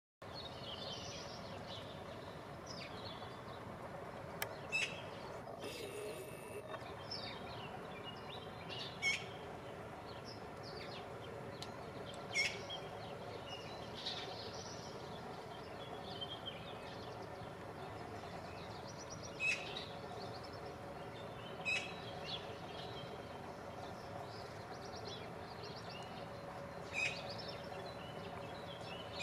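Eurasian magpie giving short single calls every few seconds, over the steady chirping of small birds.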